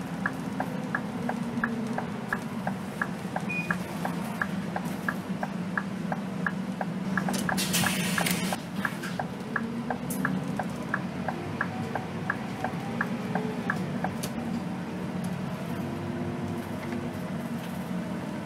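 A bus's turn-signal indicator ticks evenly about three times a second inside the cab, then stops about fourteen seconds in. Under it runs the steady low drone of the Scania K280 bus's diesel engine, with a short burst of hiss about seven seconds in.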